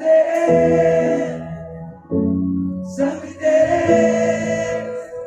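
Group of voices singing a Hindi Christian worship song with musical accompaniment, in two long sustained phrases, the second starting about three seconds in.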